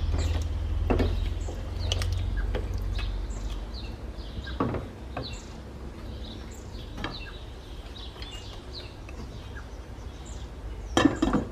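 Wooden spatula stirring and knocking against a stainless steel pot of chicken curry over a low hum, with small birds chirping again and again in the background. A louder clatter near the end as the glass lid is set on the pot.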